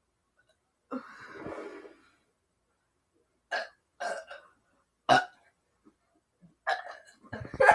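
A girl burping after drinking cola: a drawn-out burp about a second in, then three short, sharp burps a second or so apart and another near the end. Loud laughter breaks out just before the end.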